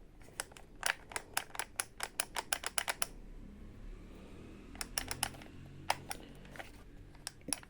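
Light plastic parts of a cordless pressure-washer kit handled and clicked together: a quick run of sharp plastic clicks and taps for about three seconds, then a few scattered clicks.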